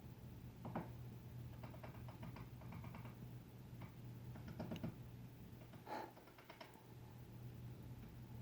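Woodpecker pecking at a doorbell: several short bursts of rapid, faint taps, over a low steady hum.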